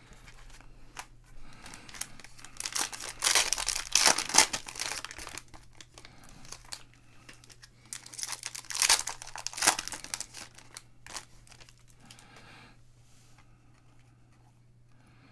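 A 2020 Panini Prizm football cello pack crinkling and tearing as it is pulled open by hand, loudest in two spells about 3 and 9 seconds in, then softer rustling as the cards are slid out and handled.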